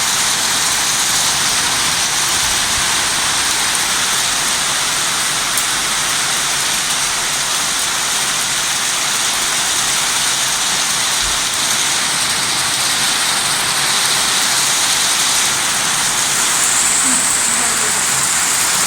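Torrential rain pouring down: a dense, steady hiss of water with no let-up.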